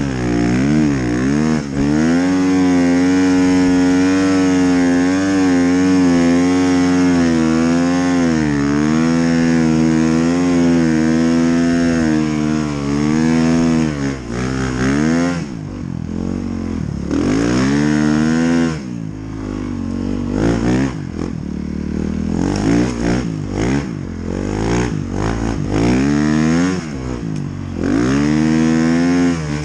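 Snowbike engine (a dirt bike fitted with a snow track kit) running hard, its pitch rising and falling with the throttle. From about halfway on, the throttle comes on and off in short stabs, with the engine dropping briefly between them.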